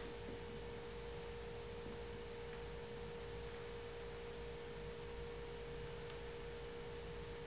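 A faint, steady tone held at one pitch, with a weaker tone an octave above it, over low background hiss.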